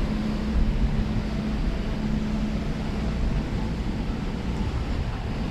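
Steady wind buffeting the microphone over a low rumble and a steady hum from the cruise ship's machinery; the hum fades out near the end.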